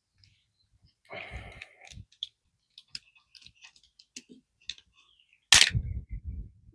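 A blade cutting and scraping at an old rubber scooter tire on its rim, with scattered clicks and a short scraping stretch about a second in. The loudest sound is a sharp knock about five and a half seconds in, followed by a brief low rumble.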